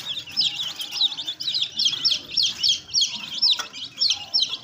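A group of young bantam chicks peeping: short high chirps, several a second, overlapping one another.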